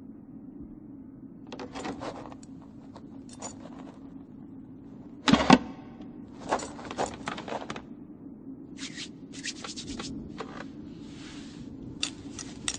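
Animation sound effects of small clicks, taps and knocks over a low steady hum: a wooden chair handled and set down, with one louder knock about five seconds in, and knitting needles clicking near the end.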